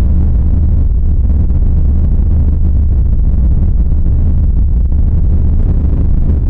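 Loud, steady low rumbling drone from a homemade creepy sound effect.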